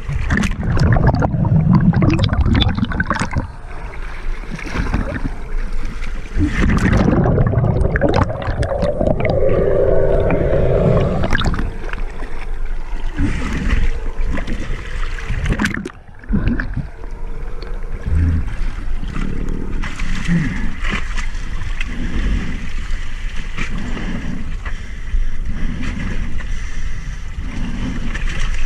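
Sea water sloshing and splashing at the surface beside a boat's stern, with muffled gurgling as the camera's microphone dips in and out of the water.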